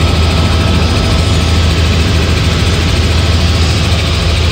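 Helicopter in flight, heard from inside the cabin: a loud, steady drone of rotor and engine with a deep low hum under a wash of wind noise.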